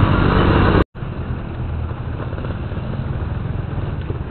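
Motorcycle engine running steadily while riding, with road and wind noise. The sound cuts out for an instant just under a second in, then carries on quieter.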